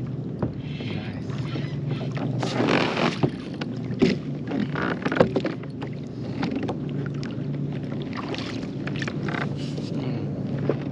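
Water splashing and clunks of handling aboard a kayak, with several short splashy bursts and sharp knocks over a steady low hum.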